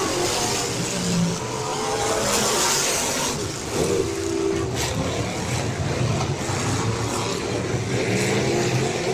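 Several full-size derby cars' engines running and revving at once, their pitches rising and falling over one another.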